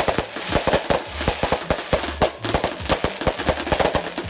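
Ground firework firing: rapid, irregular crackling pops and bangs, several a second, over a hiss of sparks.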